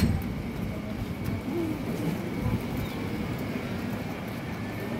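Street ambience under a concrete building: a steady low rumble with a thin high hum running through it, and faint bird calls like a pigeon cooing.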